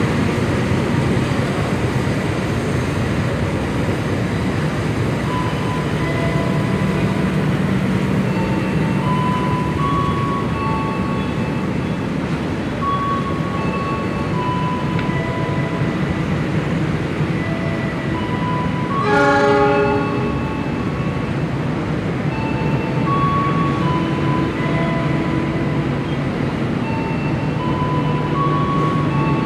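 Passenger train coaches rolling slowly past a station platform: a steady rumble with scattered short, high squeals. About two-thirds of the way through comes one brief horn-like tone.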